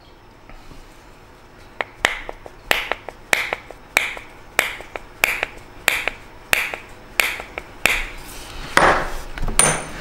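About ten light, evenly spaced taps, one every half second or so, as the shaft of a ZMX FinX drone motor is tapped back into its bell to close the gap between bell and shaft. A brief rustle follows near the end.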